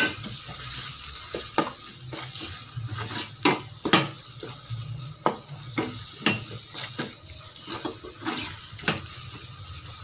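A spoon scraping and knocking against a stainless steel pot, irregularly about twice a second, while stirring a sizzling onion-tomato masala, just coated in chilli powder, over a low flame.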